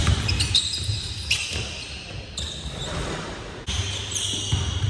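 A basketball bouncing on a hardwood gym floor with a sharp thud at the start, and sneakers squeaking several times as players cut and stop, in a large echoing hall.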